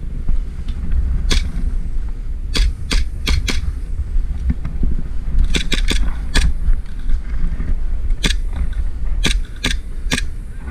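Airsoft guns firing single shots: about a dozen sharp cracks, irregularly spaced, some in quick runs of two or three. A steady low rumble of wind on the microphone runs underneath.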